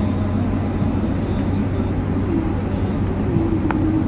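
Steady road and engine noise of a car driving at speed, with a constant low hum. There is a single short click near the end.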